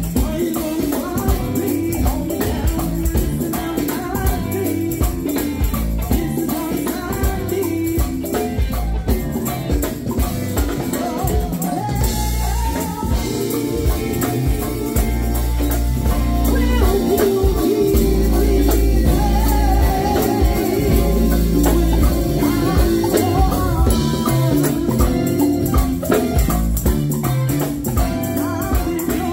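Live go-go band playing: lead singing over drum kit, bass guitar and a jingling tambourine. The heavy bass and overall level build up about halfway through.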